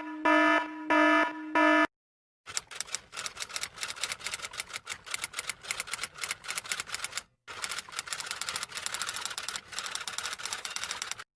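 A few short, single-pitched electronic beeps, then a short pause and a long run of rapid, uneven clicks of typing on keys, broken once briefly partway through.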